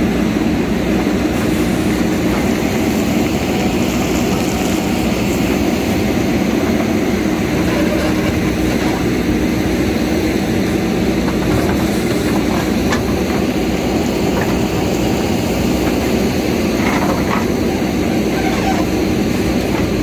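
JCB backhoe loader's diesel engine running steadily as the backhoe arm digs the rocky roadside, with a few faint knocks of stone now and then.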